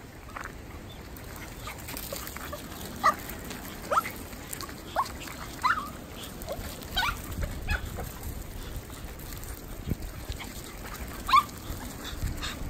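Dogs at play giving short, high yips and barks, about a dozen scattered through, the loudest about three seconds in and again near the end.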